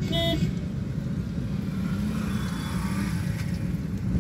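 Car engine and road noise heard from inside the cabin while driving, a steady low rumble. A brief high-pitched tone sounds right at the start.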